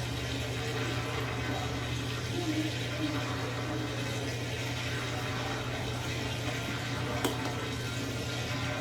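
Brastemp Total 7kg washing machine with water rushing through it over a steady low hum, with one short click about seven seconds in.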